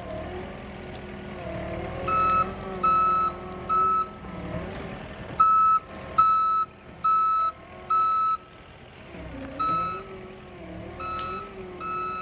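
Skid steer backing up: its reverse alarm beeps about one and a half times a second, in runs with two short breaks, over the diesel engine running and changing pitch as it maneuvers.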